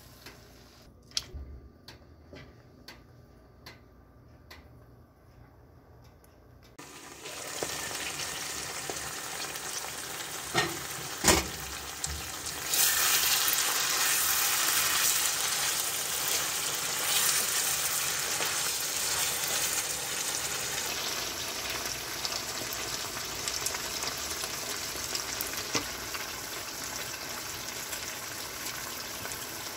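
Mutton frying in its fat in a karahi, the gravy cooked down, sizzling while being stirred. It is faint with a few ticks for the first several seconds, then the sizzle comes in and grows loud about a dozen seconds in, with a couple of sharp knocks of the utensil on the pan just before.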